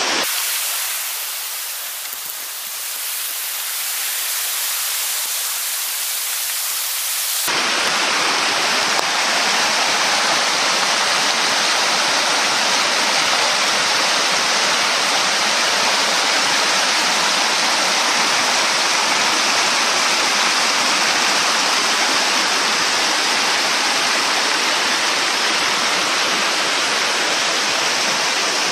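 Steady rushing noise, like wind or running water. It is thin and hissy for the first seven seconds or so, then changes abruptly to a fuller, steady rush.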